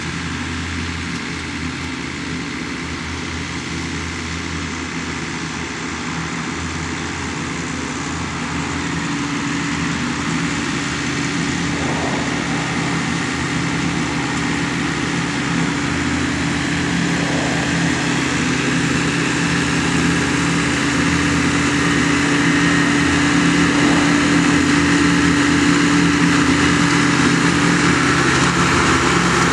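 Large Jacobsen mower's engine running steadily while mowing, growing gradually louder.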